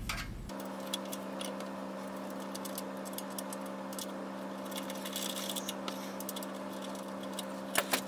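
Small clicks and rattles of cables and plastic connectors being handled inside a desktop PC case while a power cable is fitted to a graphics card, with two sharper clicks near the end. A steady hum sits underneath from about half a second in.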